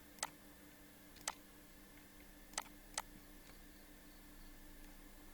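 Four sharp clicks of a computer mouse, spread over the first three seconds, with a second pair close together, over a faint steady electrical hum.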